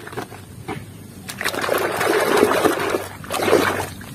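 A few light knocks of plastic toys in a basin, then from about a second and a half in, water sloshing and splashing as a toy vehicle is swished back and forth through a basin of soapy, muddy water.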